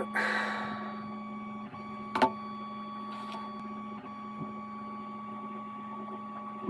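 Steady electrical hum with a constant higher whine over it, like a motor or fan running in the workshop. A short scrape at the start and a single sharp click about two seconds in.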